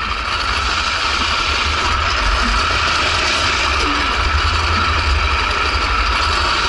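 Drift trike rolling fast down an asphalt road: a loud, steady rolling noise from its wheels on the pavement, mixed with a low wind rumble on the microphone.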